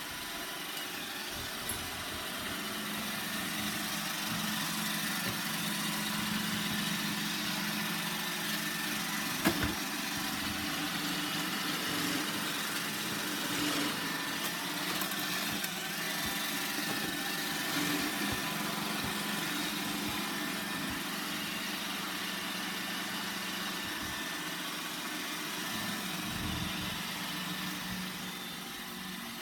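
iRobot Roomba 960 robot vacuum running, a steady whirring hum of its vacuum fan and brush motors, with a single sharp knock about nine and a half seconds in.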